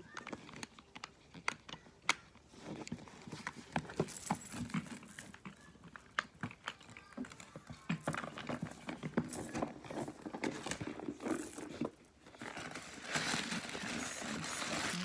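A leather handbag being handled: scattered sharp clicks and taps of its metal padlock, keys and hardware, then denser rustling and a steady crinkling near the end.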